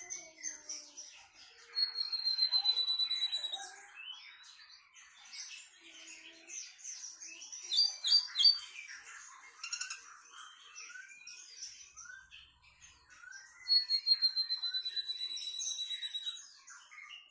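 Tledekan Melayu songbird singing: a continuous rambling, scratchy twitter, broken twice by a long, slightly falling high trill of about two to three seconds, one near the start and one near the end, with a few sharp loud notes in the middle.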